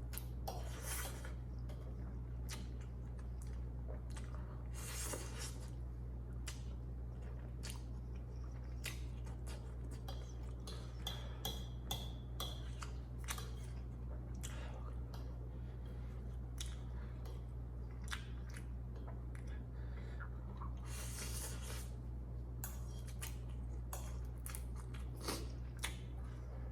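A person chewing instant noodles close to the microphone: irregular wet clicks and smacks, with a few longer noisy bursts. A steady low hum sits beneath.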